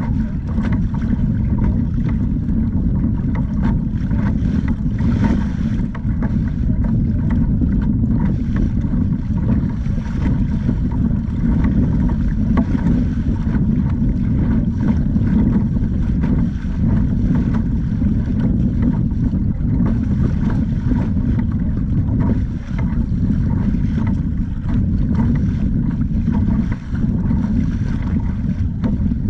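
Steady rumbling wind noise on the microphone, with water washing along the hull of a pedal kayak under way on choppy sea.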